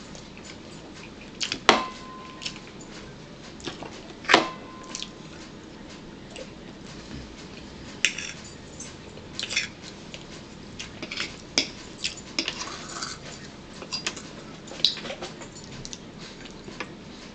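Metal cutlery clinking and scraping against a plate and a bowl as people eat, in scattered sharp taps. The two loudest strikes, a couple of seconds apart early on, each leave a short ringing tone.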